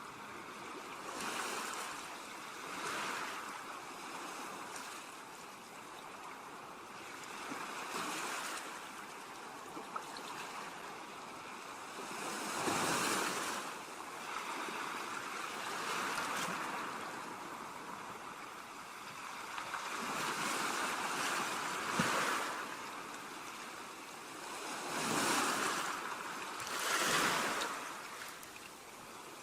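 Waves breaking and washing up on a beach, a steady hiss of surf that swells with a louder wave every few seconds.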